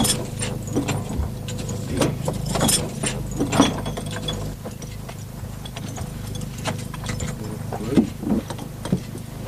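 Irregular clinks and rattles of a Mongolian shaman's costume ornaments as the shaman whirls, over a steady low hum.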